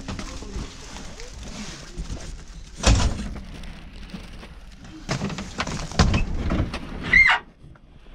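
A few separate knocks and thuds, then a short squeal that rises and falls near the end.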